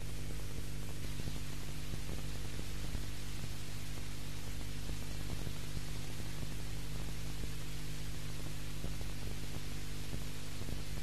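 Steady hiss and mains hum with nothing else on the soundtrack: the background noise of an old VHS recording of a TV broadcast.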